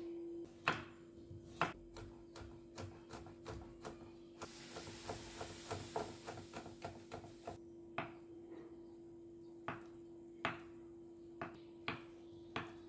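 Kitchen knife chopping on a wooden cutting board. First come scattered knocks, then a run of quick, even taps about five a second with a steady hiss over it while garlic is minced, then single knocks about a second apart as tofu is sliced.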